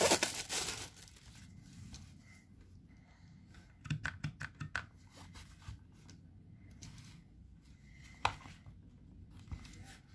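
Thin plastic packaging bag crinkling for about the first second. Then a cluster of light clicks and taps about four seconds in, and one sharper click a little after eight seconds, as the plastic case of a cordless-tool battery pack is handled.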